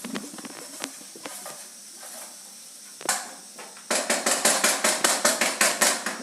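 Food sizzling in a hot pan while a spatula works it, with faint clicks at first. From about four seconds in comes a quick run of loud scraping strokes, about five a second.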